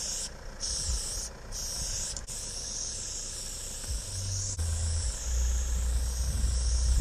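Aerosol spray paint can hissing as an outline is sprayed, with brief breaks in the spray about half a second and a second and a half in. A low rumble runs underneath.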